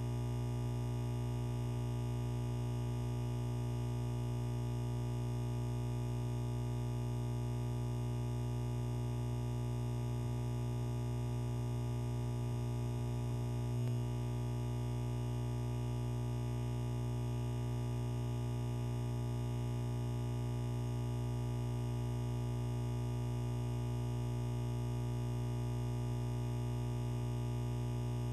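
Steady electronic hum made of several fixed low tones that never change, with one brief low thump about halfway through.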